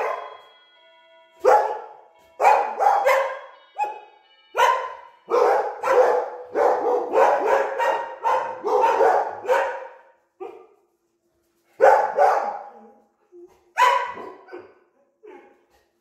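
A doorbell chime rings at the start, setting off a barking frenzy from several dogs, Belgian Malinois among them. Loud, overlapping barks go on for about eight seconds, then a few single barks follow near the end.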